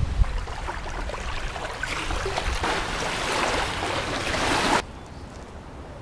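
Rushing water noise with a low rumble under it at first, swelling louder and then cutting off suddenly about five seconds in, leaving a much quieter outdoor ambience.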